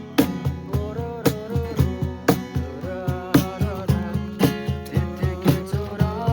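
Background music with a steady beat and guitar, with a pitched melody line bending above it.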